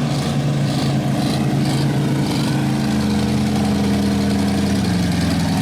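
Engines of bone-stock demolition derby cars running at a steady, loud level. The engine note steps up as a car revs about halfway through, then drops back near the end.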